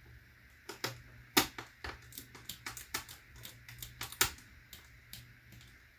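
A quick, irregular run of sharp clicks and taps of hard parts being handled during laptop screen work, about twenty in a few seconds, with two louder knocks.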